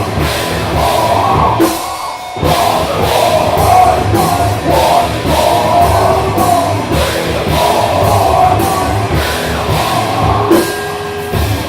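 Rock band playing a heavy-metal song live, drum kit keeping a steady beat under the band; the sound dips briefly about two seconds in.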